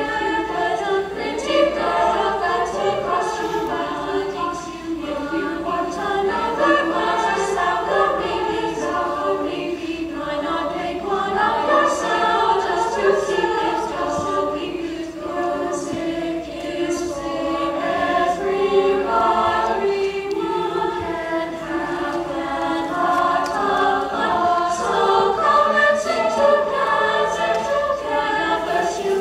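Youth choir singing in parts, a continuous sung passage of many voices at a steady level.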